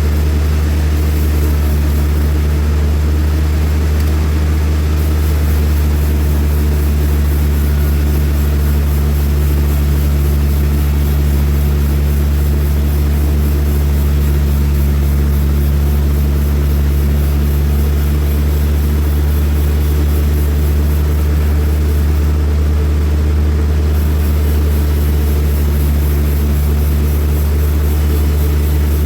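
Large sawmill machinery running with a steady, unchanging low engine-like drone.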